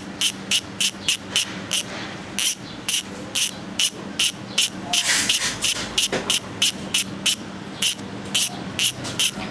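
Weapon Savage bicycle rear hub (6 pawls) freewheeling as it is spun, its pawls clicking about four times a second and running into a fast continuous buzz around five seconds in before spacing out again. The clicking is fine and almost shrill.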